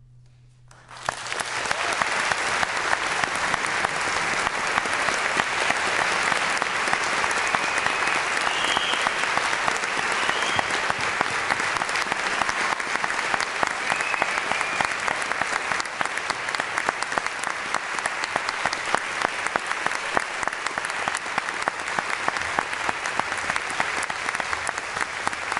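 Audience applauding at the close of a performance: the final chord of the band dies away and the applause breaks out about a second in, then goes on steadily.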